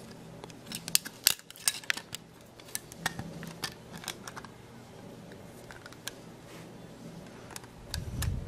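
Hard plastic model-kit parts clicking and tapping in the fingers as a clear windscreen is fitted into a plastic truck cab. There are several sharp clicks in the first three seconds, then quieter handling, and a low bump near the end.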